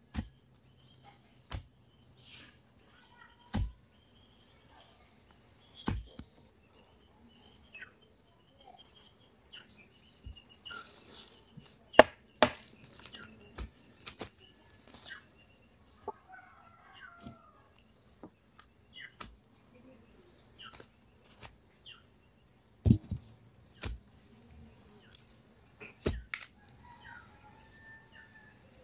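Insects chirring in a steady high drone, with a dozen or so sharp, irregularly spaced knocks and taps over it, the loudest about twelve seconds in and again near twenty-three seconds. A bird chirps briefly now and then.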